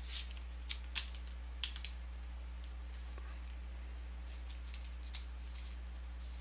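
Trading cards being handled on a table: a few light clicks and taps, the two sharpest about a second and a second and a half in, then a few faint ticks, over a steady low hum.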